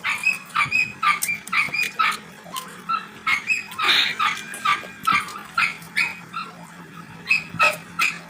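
Close-up chewing of crunchy green mango: short, repeated crunches about two to three a second.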